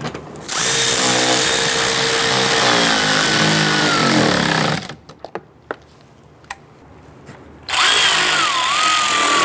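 Cordless drill/driver driving screws into a car door panel, running twice for a few seconds each with a wavering whine. A few small clicks between the runs.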